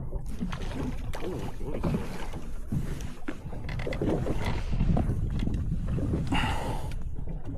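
Wind buffeting the microphone on a small boat at sea, with water noise against the hull and scattered knocks; a brief hissing rush about six and a half seconds in.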